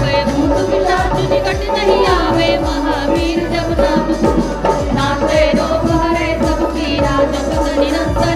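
Hindu devotional bhajan sung by a woman into a microphone, accompanied by a dholak drum keeping a steady beat.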